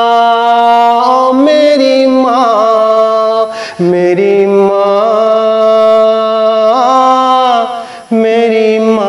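Naat singing without clear words: a voice holding long notes that waver slightly, pausing briefly a little under four seconds in and again about eight seconds in.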